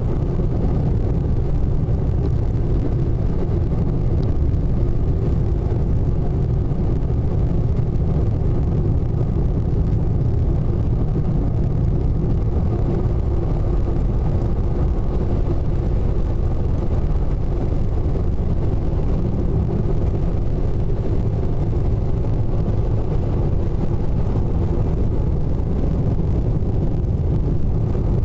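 Steady low rumble of a moving car, engine and tyre noise heard from inside the cabin, with no changes or sudden sounds.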